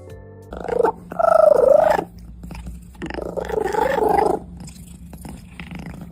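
A domestic cat vocalizing in drawn-out, pitch-bending meows. There are two long calls about a second and a half apart, and a third starts near the end, over a steady low rumble.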